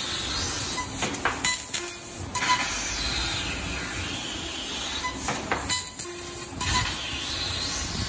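CNC laser cutter cutting 15 mm steel plate: a steady hiss of assist gas from the cutting head. It is broken by a few sharp bursts about two seconds in and again about six seconds in.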